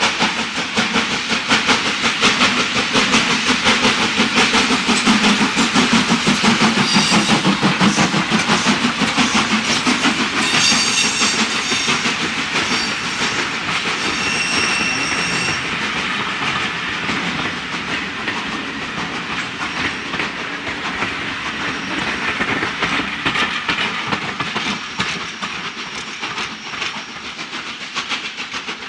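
WD Austerity 2-8-0 steam locomotive No. 90733 working a passenger train past at close range: rapid, even exhaust beats and the clatter of the coaches over the rail joints, with a few brief high squeals near the middle. The sound fades as the train moves away.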